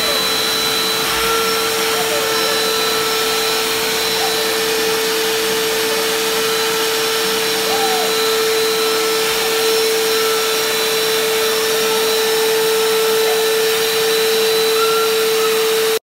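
Vacuum cleaner motor running steadily: an even rushing hum with a constant high whine.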